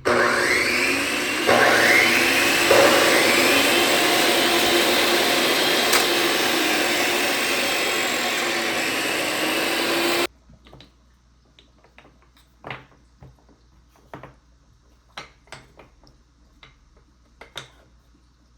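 A power tool's electric motor runs loudly for about ten seconds, its pitch dipping and recovering as it works the wood, then cuts off suddenly. A few faint light taps follow.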